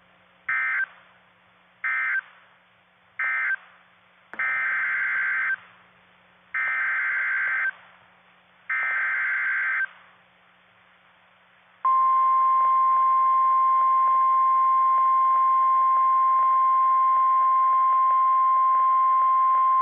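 NOAA Weather Radio emergency alert signals heard over the radio: three short buzzy SAME data bursts closing the previous warning, then three longer SAME header bursts for the next alert. About 12 seconds in, the steady single-pitch 1050 Hz warning alarm tone begins and holds.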